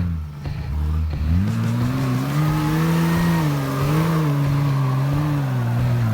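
Nissan Patrol Y61's 4.2-litre TB42 straight-six petrol engine revving up sharply about a second in and held at high revs, the pitch rising and falling slightly, then dropping briefly near the end.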